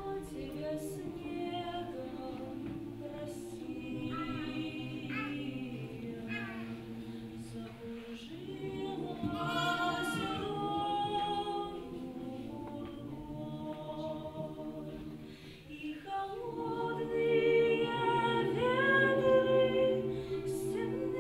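Mixed choir singing a cappella, a woman's solo voice carrying the melody over the choir's held chords; the singing grows louder near the end.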